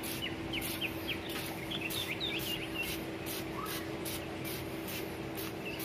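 Hand trigger spray bottle squeezed over and over, misting liquid fertilizer in short hisses about three times a second. Short high chirps and a steady low hum sit underneath.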